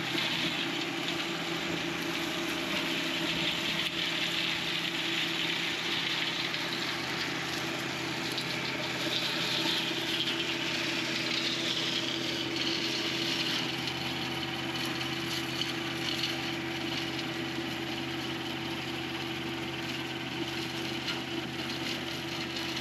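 John Deere 1025R compact tractor's three-cylinder diesel engine running steadily, driving a Nova offset flail mower through blackberry vines and brush. It is an even hum that holds the same pitch and level throughout.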